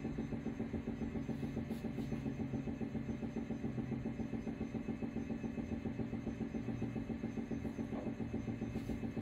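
Steady low machine hum from lab equipment, with a fast, even pulsing throughout.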